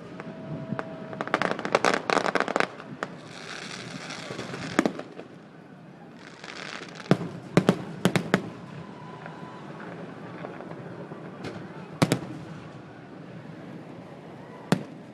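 Fireworks display: a rapid cluster of sharp cracks in the first few seconds, then aerial shells bursting with single bangs every few seconds. Twice in between comes a stretch of crackling hiss.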